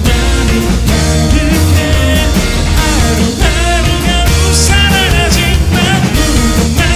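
Live rock band playing: acoustic guitar, electric guitar, bass guitar and drum kit, with a man singing the lead vocal.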